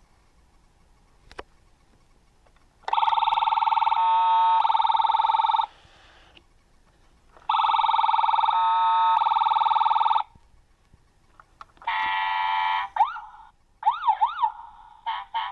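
Battery toy ambulance's electronic siren sound effects from its small speaker: two long steady tones of a few seconds each, then a shorter burst and several quick up-and-down wails near the end. A single click comes about a second in.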